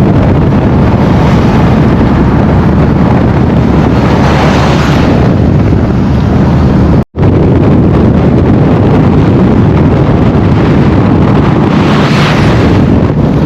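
Loud car engine and exhaust running with a heavy low rumble, swelling twice, about four seconds in and near the end, with a short break about seven seconds in.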